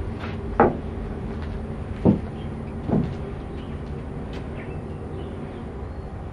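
Three short knocks, the first two about a second and a half apart and the third just under a second later, over a steady low background hum.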